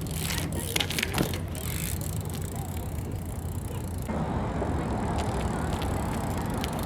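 BMX bike riding on pavement: tyres rolling over a steady low rumble, with a few sharp clicks and knocks about a second in. The background noise changes abruptly at about four seconds.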